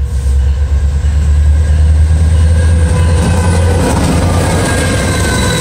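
Norfolk Southern diesel locomotive passing close by at the head of an intermodal train, with a heavy low engine rumble. From about three seconds in, steel wheels on the rail and a faint high squeal take over as the cars follow.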